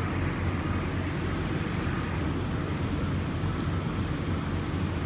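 Steady low hum and rumble of idling diesel trucks, unchanging throughout, with a faint regular ticking high above it.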